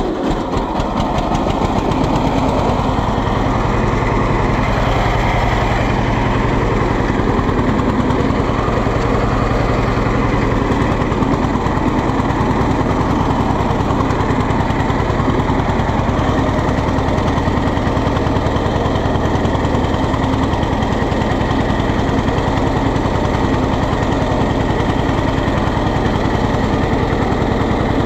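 John Deere Model B tractor's two-cylinder engine running with a low, even pulsing beat. It grows louder over the first two seconds, then holds steady.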